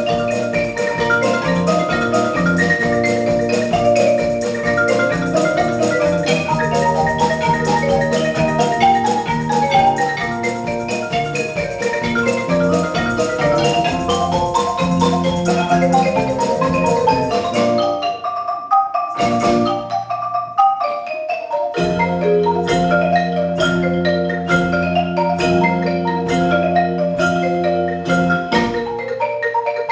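Percussion ensemble of marimbas and xylophones playing a fast, busy run of notes over a low accompaniment. About 18 seconds in the low part drops out, leaving the mallet instruments alone for a few seconds, and the full ensemble comes back in about 22 seconds in.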